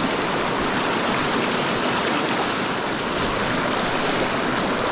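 River water flowing, a steady, even rushing noise.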